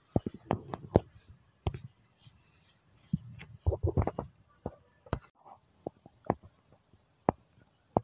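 Handling noise on the recording phone: irregular sharp clicks and taps, with two brief stretches of low rumbling about half a second and about three seconds in.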